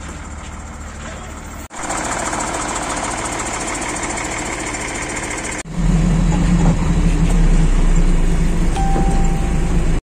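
Heavy diesel engine running steadily, in three joined pieces: a low idle hum, a louder and noisier stretch from about two seconds in, and from about six seconds in a loud, deep drone from the lowboy truck's engine. A brief high tone sounds near the end.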